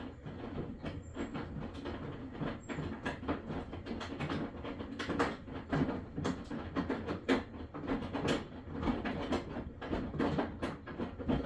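Maytag washing machine running mid-cycle: an uneven, continuous clatter of knocks and rattles over a low rumble, which cuts off abruptly at the end.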